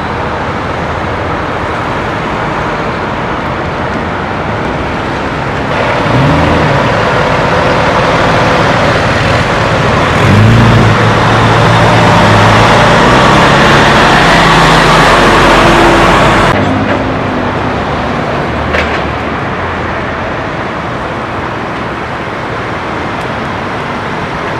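Steady highway traffic noise. About six seconds in, a nearby vehicle's engine grows louder and twice rises in pitch as it accelerates, then the noise drops off abruptly a little past the middle. A single sharp click follows a couple of seconds later.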